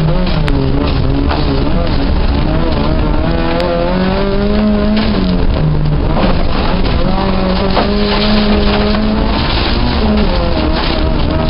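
Fiat Uno 1600's engine heard from inside the cabin, revving up and down repeatedly as the car is driven hard, with steady tyre and road noise from sliding on dirt.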